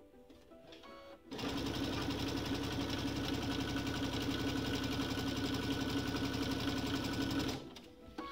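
Electric sewing machine running at a steady speed, stitching two fabric wedges together; it starts about a second in and stops near the end.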